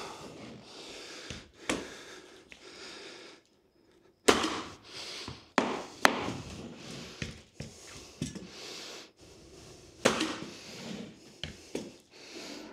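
A mallet knocking on hardwood flooring boards, tapping them tight into place, with some handling clatter. The knocks come irregularly, the loudest around four to six seconds in and again about ten seconds in.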